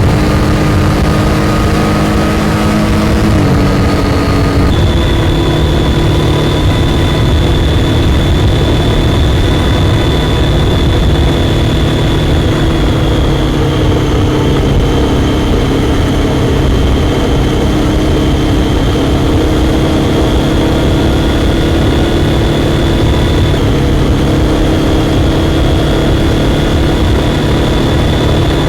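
Triumph Daytona 675's inline three-cylinder engine running at a steady cruising pace, with wind and road rush around it. Its pitch steps down a little about four to five seconds in, dips slightly near the middle and rises again near the end.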